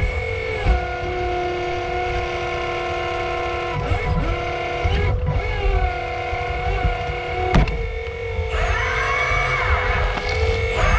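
Hydraulic pump and valves of a 1/8 scale 385CF RC excavator whining while it digs, the pitch stepping up and down as the controls are worked and rising and falling near the end. A sharp clack about seven and a half seconds in.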